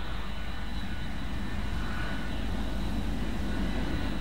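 Jet aircraft engine running steadily: a deep rumble with a thin, steady high whine above it.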